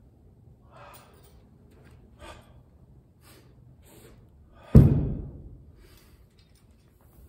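A spear form being performed: a few faint swishes and sharp breaths, then about five seconds in a single heavy thud on the floor that booms and dies away over about a second.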